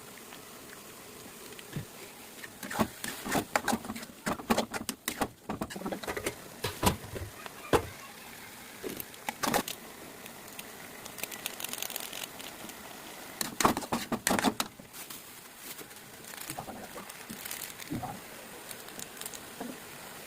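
Irregular clicks and knocks of kitchen utensils being handled while food is prepared, coming in clusters with short quiet gaps between them.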